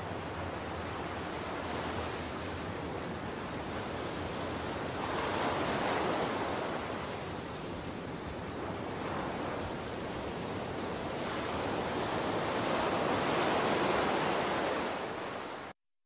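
Rushing surf ambience: an even wash of waves that swells twice, then cuts off abruptly near the end.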